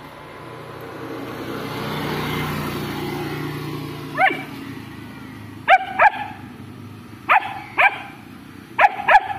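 Long-coat German Shepherd puppy barking at another dog: seven short, high barks from about four seconds in, mostly in pairs. Before them a passing vehicle's rumble swells and fades.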